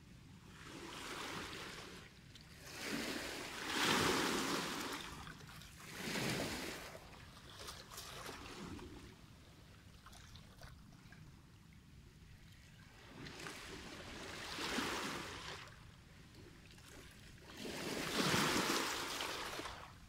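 Small sea waves breaking and washing in over a rocky, stony shore, each surge swelling into a hiss and fading, about every two to five seconds. The loudest surges come about four seconds in and near the end.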